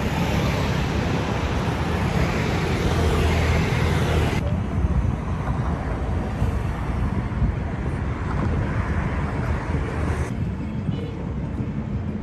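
Steady road-traffic rumble on a high road bridge, mixed with wind noise on the microphone. The high hiss drops away suddenly about four seconds in, leaving mostly the low rumble.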